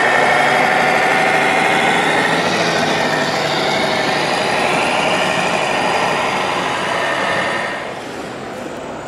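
Large-scale RC truck's electronic sound module playing a big diesel engine's running sound through its loudspeaker, loud and steady. It drops off sharply near the end.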